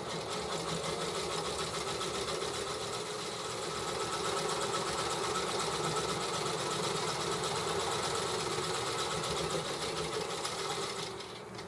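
Electric sewing machine running at a steady fast stitch, sewing a seam through heavy sling-chair fabric; it stops near the end.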